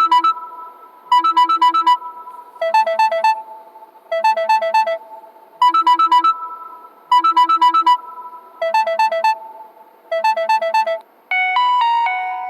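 Electronic alarm tone: quick runs of about four beeping notes, repeating about every one and a half seconds and alternating between a higher and a lower pitch. Near the end a different chiming alarm tone takes over.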